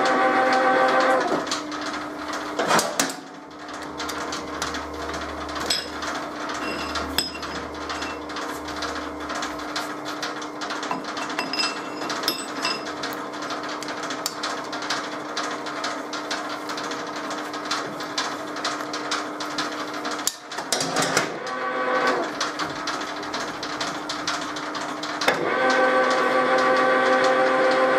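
Metal lathe running with a steady multi-tone whine, which stops about a second in. Then come clicks and a few sharp knocks of a chuck key loosening and tightening the chuck, under a low steady hum. The lathe starts up again a few seconds before the end.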